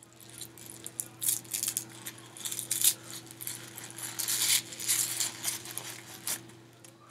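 Plastic blind-bag wrapping crinkling and crackling in irregular bursts as it is handled and torn open by hand, over a faint steady low hum.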